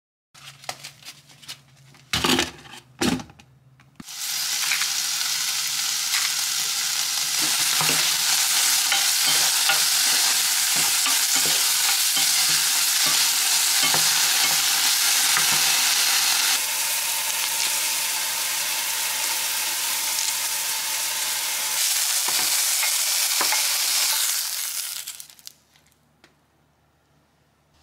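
Cubes of beef sizzling in a hot frying pan as they are stirred with a wooden spatula. A few knocks and two loud thumps come first, the sizzle starts about four seconds in, and it dies away near the end.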